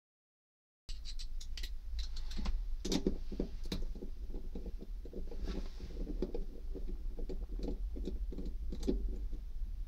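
Hands handling the fuel tank's pump-and-sender unit and its fuel line fittings through the floor hatch: irregular small plastic clicks and rattles over a steady low hum, starting about a second in.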